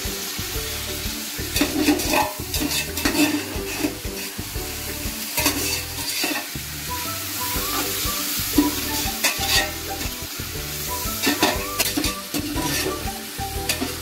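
Big onions and freshly added chopped tomatoes frying in oil in a large cooking pot, sizzling steadily, while a ladle scrapes and knocks against the pot many times as the mixture is stirred.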